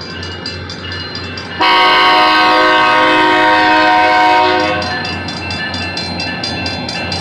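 Locomotive air horn sounding one long blast of about three seconds, starting about a second and a half in and fading out, the loudest sound here. Under and around it the grade-crossing signal bell dings steadily, about four times a second.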